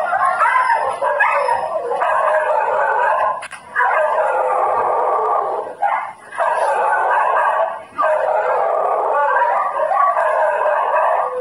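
Several dogs howling and yelping together in long, overlapping cries, broken by brief pauses about three and a half, six and eight seconds in.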